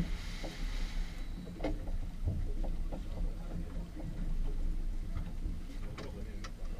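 Steady low rumble of a fishing boat lying on calm sea, with scattered short knocks and clicks as gear is handled on the deck. A brief hiss in the first second.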